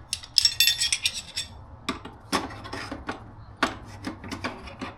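Metal hand tools clinking, knocking and scraping against each other as they are packed into a small motorcycle toolbox. A ringing clatter comes about half a second in, followed by scattered knocks and rubs.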